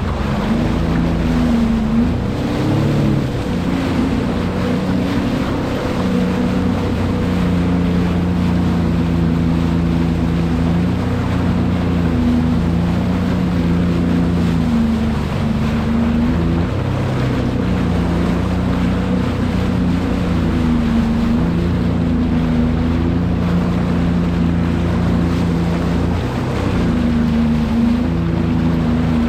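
Sea-Doo personal watercraft engine running under way, its pitch rising and falling as the throttle changes, with wind rushing over the microphone.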